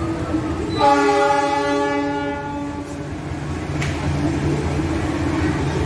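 Diesel locomotive horn of an approaching train, one long blast of about two seconds starting about a second in. A low steady hum continues under it and after it.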